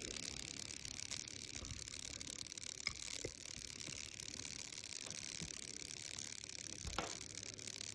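Steady background buzzing, with a couple of faint clicks about three and seven seconds in.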